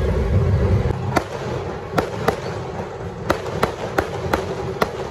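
Fireworks bursting overhead: a string of sharp bangs, about eight in four seconds and unevenly spaced, over steady street noise, with a heavy low rumble in the first second.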